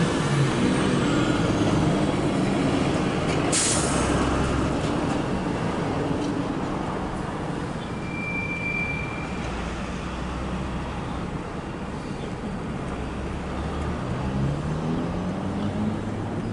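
Empty intermodal freight cars rolling along the track, a steady low rumble of wheels on rail. A sharp hiss comes about three and a half seconds in, a short high squeal around eight seconds, and a rising hum near the end.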